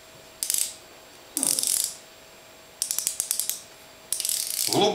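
Magnetic brake adjustment dial on a baitcasting reel's side plate, turned by hand and clicking through its detents in several short runs, one a quick string of clicks.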